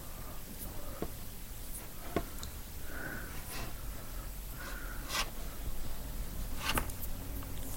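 Low steady hum with a few soft, sharp clicks and faint rustles.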